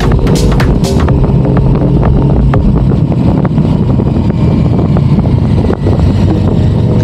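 KTM 1290 Super Adventure motorcycle's V-twin engine running steadily while riding, with wind noise over the microphone. Electronic music beats fade out about a second in.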